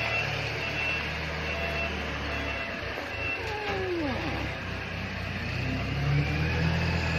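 A steady, low, engine-like hum, which fades out around the middle and comes back near the end. About three and a half seconds in, there is a brief falling whine.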